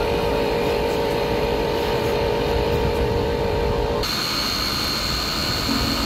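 Steady electric motor whine from Huina remote-control toy construction vehicles over a rushing noise; about four seconds in, the whine switches abruptly to a higher, thinner tone.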